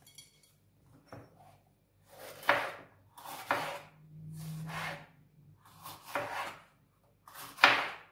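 Kitchen knife slicing a green bell pepper into strips on a cutting board: five crisp cuts, the blade going through the pepper and knocking the board roughly once a second.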